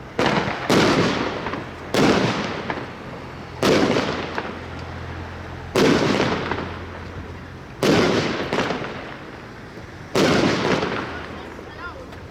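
Blackboxx Violet Fantasy firework battery firing: seven loud bangs of bursting shots, spaced irregularly about one to two seconds apart, each trailing off over a second or so.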